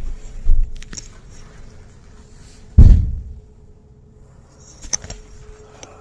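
A few knocks and thuds, the loudest a heavy low thud just before three seconds in, with a sharper knock near five seconds.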